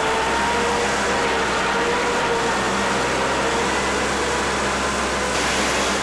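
Wheel loader's diesel engine running steadily under load, with a faint steady whine over its hum as the forks hold a stack of sawn lumber.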